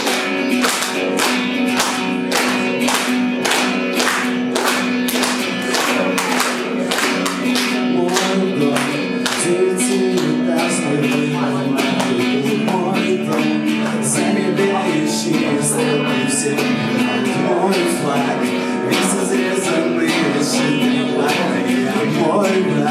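Live grunge-rock song, an instrumental stretch between sung lines, led by guitar. The first half has a steady, evenly spaced beat; the second half moves to more held notes.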